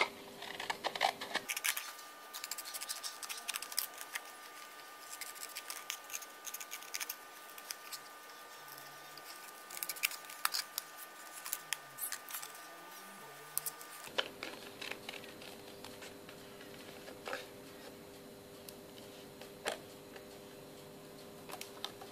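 Scissors snipping through a paint sample card: a long run of short, irregular snips.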